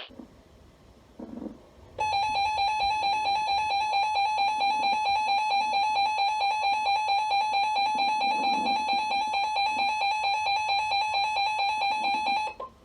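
Emergency Alert System attention signal: a steady electronic alert tone that starts about two seconds in, holds for about ten seconds and cuts off abruptly.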